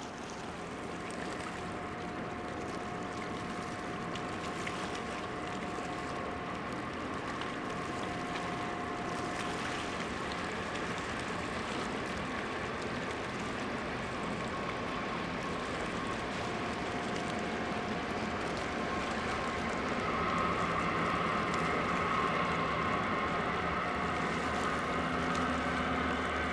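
Steady drone of the cruise ship Mein Schiff 1 passing close, a few held hums over a rushing water noise, growing slowly louder. A stronger hum joins about three quarters of the way through.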